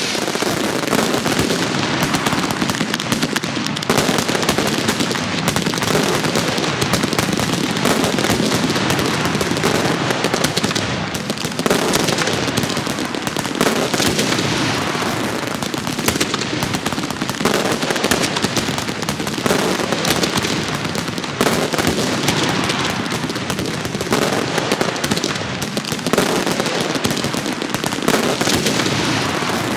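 Fireworks going off without a break: a dense, rapid crackling and popping of launches and aerial bursts, swelling into louder flurries every few seconds.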